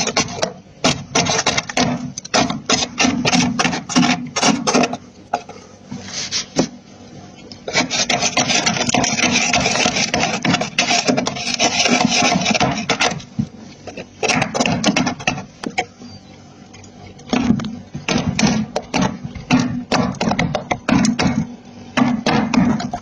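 Freezer frost being scraped, a raspy scratching that comes in longer stretches near the start and in the middle, alternating with runs of sharp crunches as the powdery frost is chewed.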